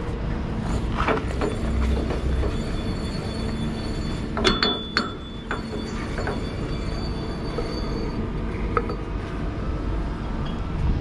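Metal clanks and clinks as a container chassis twist-lock is worked by a gloved hand under the container's steel corner casting. The loudest clank comes about four and a half seconds in and rings briefly. A steady low hum of machinery runs underneath.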